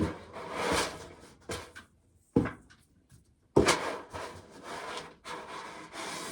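Handling noises on wood: irregular rubbing and scraping with a couple of sharp knocks, the sharpest about two and a half seconds in.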